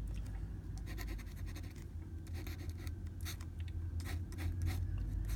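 Gold dip-pen nib scratching across paper, drawing with ink in several runs of quick, short strokes.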